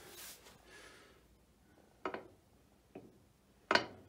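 A Myford lathe saddle being set down and shifted on the blued lathe bed ways: a few short, light knocks in the second half, the loudest about three and a half seconds in.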